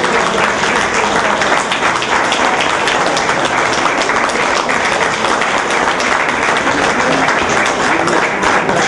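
A room of people applauding, a steady dense clapping that holds throughout.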